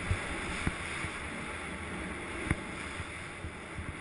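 Skis sliding through powder snow with wind rushing over the camera's microphone, a steady noise with a few sharp knocks, the loudest about two and a half seconds in.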